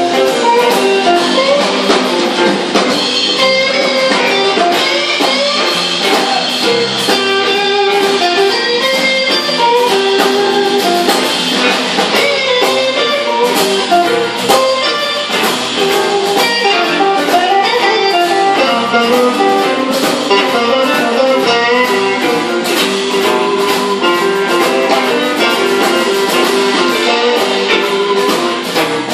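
Live electric blues band playing: electric guitar lines over drums, with no singing.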